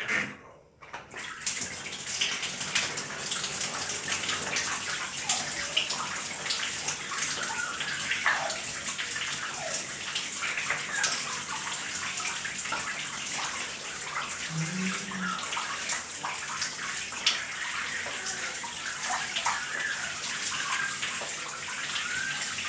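Shower running, water spraying steadily, coming on about a second in.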